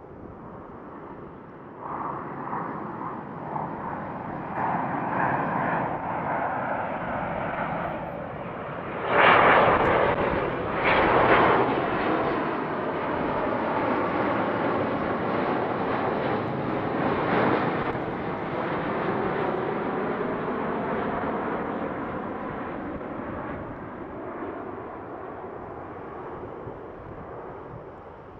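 A jet airliner passing nearby. Its engine noise swells over several seconds, is loudest about nine to twelve seconds in, then slowly fades away.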